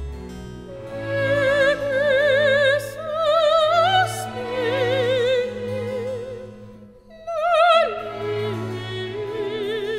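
Background music: an operatic soprano sings long held notes with wide vibrato over a soft sustained accompaniment, breaking off briefly about seven seconds in and then sliding down to a lower note.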